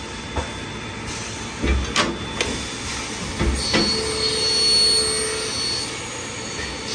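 Scotchman automatic circular cold saw running through its cycle: steady machine noise with several sharp clanks in the middle and a brief steady whine about four seconds in.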